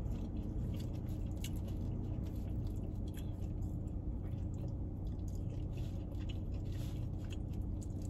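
Close-up chewing and the soft wet tearing of smoked chicken breast pulled apart by hand, many small mouth clicks, over a steady low hum.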